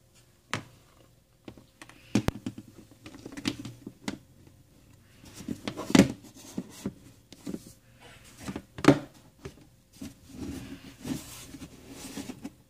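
Plastic storage bins and dog toys being handled at close range: irregular taps, knocks and rustles, with a few sharper knocks spread through.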